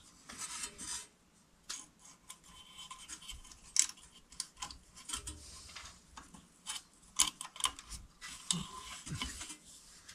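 Wires being handled and bent at a metal electrical junction box: irregular rubbing and scraping with scattered small clicks of wire and hands against the box and armored cable.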